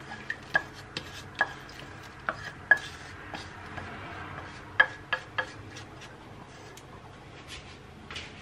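A kitchen utensil scraping and knocking against a metal pan, as fried onion is scooped out into the soup pot; several sharp taps ring briefly, a handful in the first three seconds and three more close together about five seconds in.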